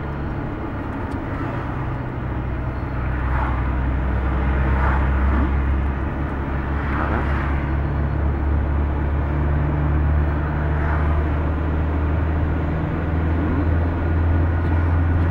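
Steady low rumble of a car driving at speed, heard from inside the cabin: engine and tyre noise, with a few brief swells of hiss.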